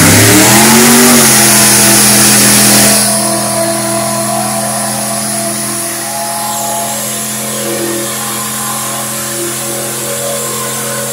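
Small-block Chevy V8 of a mud-bog vehicle on paddle tires at full throttle in a mud pit: the revs climb for about a second and are then held steady and high. For the first three seconds a loud rushing noise lies over the engine, after which it runs on a little quieter.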